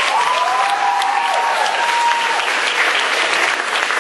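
An audience applauding in a hall, a dense steady clatter of many hands clapping. For about the first two seconds a steady high tone sounds above the clapping.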